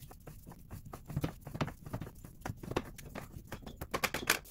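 Screw-type support stand being unwound by its T-handle and lowered from the rear lower control arm: a run of irregular clicks and knocks that comes faster near the end.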